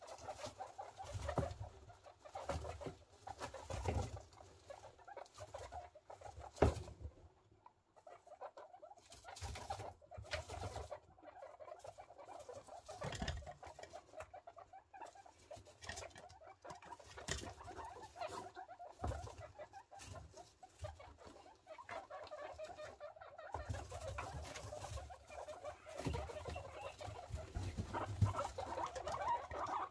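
Guinea pigs moving about in wood-shaving bedding, a steady rustle with many small clicks, mixed with their soft warbling vocalizations. A few low bumps come in near the start and again in the last few seconds.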